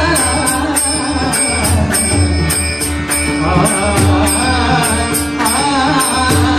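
Marathi devotional abhang music with small hand cymbals struck in a steady beat, about three strokes a second, over a steady drone and drums.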